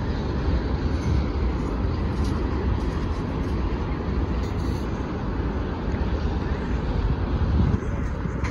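Freight train's boxcars rolling past, a steady rumble of wheels on rail.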